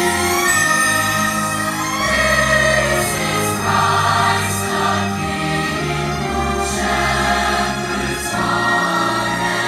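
Massed choir singing a Christmas carol with orchestral accompaniment, held chords over a bass line that moves step by step.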